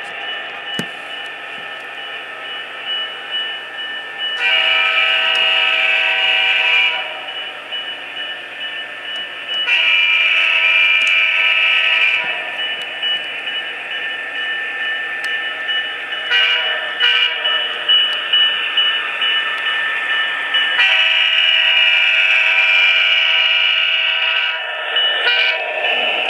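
Sound-equipped HO-scale model of an Alco RS-27 diesel locomotive with a Quantum sound decoder, playing a recorded diesel engine running with a multi-chime air horn over it, through the model's small speaker. The horn blows two long blasts, a short one or two, then a final long blast, the grade-crossing pattern.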